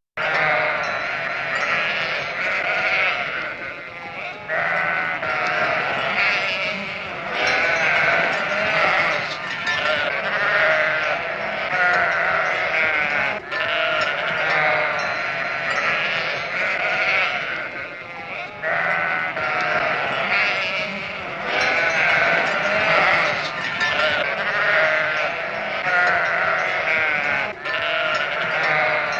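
Many animals calling at once: a dense chorus of overlapping, wavering cries that barely pause, as from a flock or colony.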